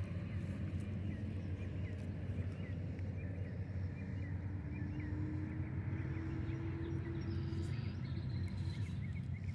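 Outdoor ambience at a pond bank: a steady low rumble with small birds chirping over and over in short, quick notes. A faint steady hum comes in about four seconds in and fades a few seconds later.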